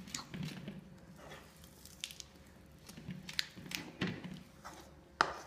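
Spoon stirring a thick, sticky mixture of sesame seeds and jaggery syrup in a pan: irregular scrapes and clicks with a soft squish, the sharpest click just before the end.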